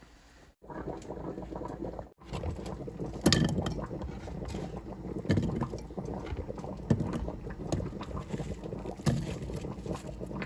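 Food-preparation sounds in a kitchen: a steady noisy rustle or slosh with irregular knocks and clatter, in short clips cut together, with abrupt breaks about half a second and two seconds in.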